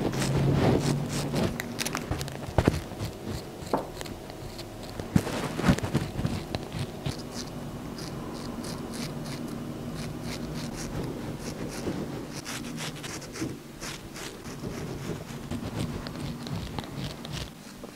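Straight razor scraping through shaving foam and stubble on the neck and chin in many short, crisp strokes.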